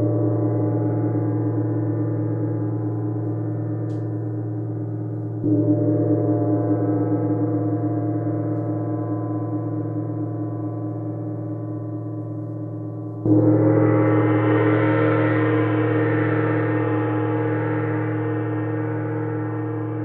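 A 24-inch Paiste Symphonic gong ringing with many overlapping low tones that fade slowly. It is struck again about five seconds in and again about thirteen seconds in, the last stroke brighter and fuller than the others.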